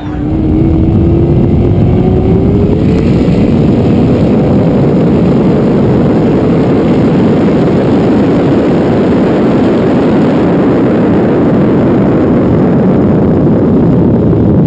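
LMR Corvette's twin-turbo iron-block 427 V8 at full throttle on a high-speed pass, heard from a camera mounted on the car's body under heavy wind rush. The engine note climbs steadily over the first four seconds or so, then holds as a loud, unbroken roar.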